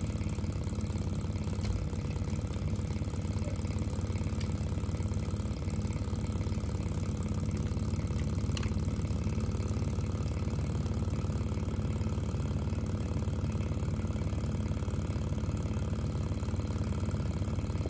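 Small model Stirling engine running steadily, its piston and flywheel giving an even, continuous mechanical hum.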